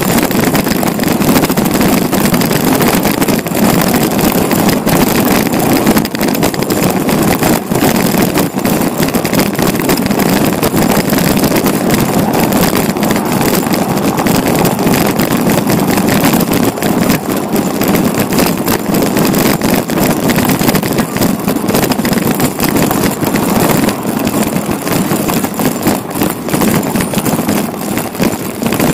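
Steady rumble and wind noise of riding a bicycle along city streets, with frequent small knocks and rattles from bumps in the road surface.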